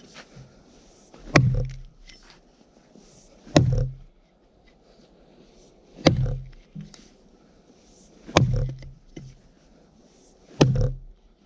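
Fire axe chopping into a frozen spruce trunk: five heavy blows, evenly spaced a little over two seconds apart.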